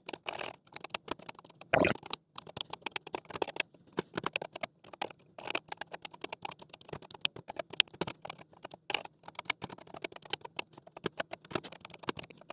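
Keys of a Commodore PET 4032 keyboard being typed one after another in quick, irregular clicks, with one louder thump about two seconds in. It is a key-by-key test of its recoated carbon-pad switches, with some keys pressed again, harder, when they fail to register.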